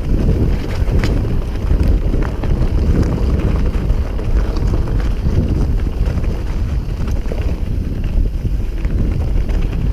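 Wind buffeting the microphone of a camera on a mountain bike descending fast, over a steady low rumble of knobby tyres on rough dirt. Frequent short rattles and clicks come from the bike as it bounces over the trail.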